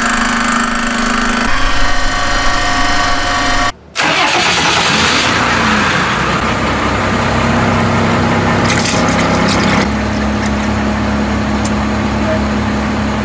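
Workshop machinery running steadily, broken off briefly a little under four seconds in, with loud rushes of hiss about four to six seconds in and again near nine seconds.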